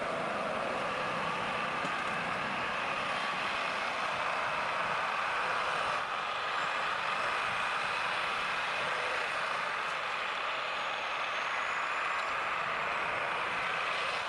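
Tractor engine running steadily, with no breaks or changes in pitch.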